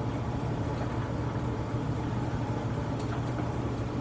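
Turnmaster engine lathe running with its spindle at around 1,000 rpm, a steady even hum.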